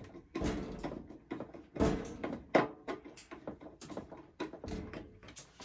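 Metal electrical service panel cover being handled and closed as its screws go in: a string of separate knocks and clanks, the loudest about two and a half seconds in.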